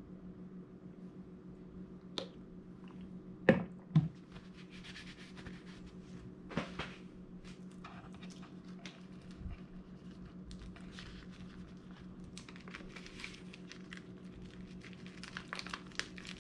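Dry nori sheet handled and folded by hand around a sushi hand roll: faint crinkling and rustling. Two sharp knocks come about three and a half and four seconds in, over a steady low hum.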